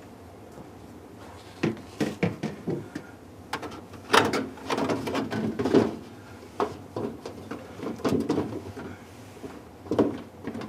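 Evaporator fan cover being worked back into place inside a refrigerator: a run of irregular knocks, clacks and scrapes, starting a couple of seconds in.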